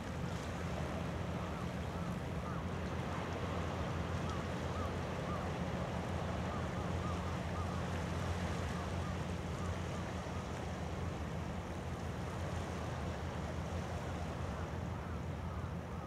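Steady seaside ambience: wind buffeting the microphone over a constant low hum, with small waves washing over a rocky shore.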